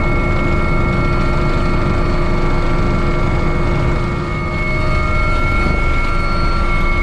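Leonardo AW139 search-and-rescue helicopter in flight, heard from inside the cockpit: a loud, steady rotor and engine rumble with several constant whining tones above it.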